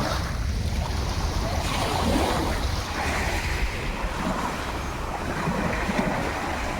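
Sea waves washing on the shore, with wind buffeting the microphone as a steady low rumble.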